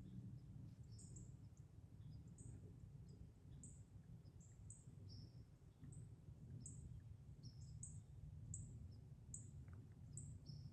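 Faint, short high-pitched bird chirps repeating every half second or so over a low background rumble.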